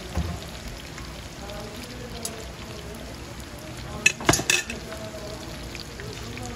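Battered foods deep-frying in a large wok of hot oil, a steady sizzle. A dull knock comes right at the start, and a quick cluster of sharp metal clacks about four seconds in, from long metal tongs.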